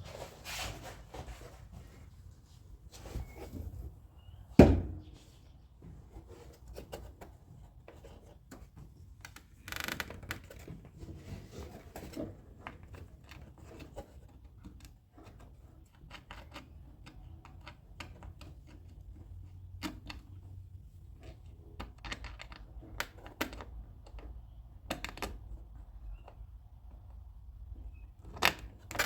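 Hand tools and metal door hardware clicking and clanking irregularly inside a 1957 Chevrolet Bel Air's rear door, during work on its outer handle and lock. One loud knock comes about four and a half seconds in.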